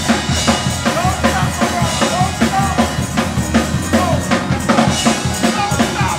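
A church drum kit playing a fast, driving shout beat, bass drum and snare hitting about four times a second, as the church breaks into praise at the sermon's climax.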